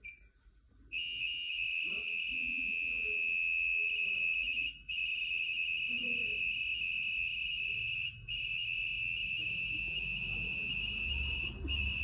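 LG front-load washing machine sending its Smart Diagnosis signal. After a short beep, a steady high-pitched data tone starts about a second in from the washer's speaker, with brief breaks about 5, 8 and 11.5 seconds in. It carries the machine's diagnostic data to the LG ThinQ app while the display counts down.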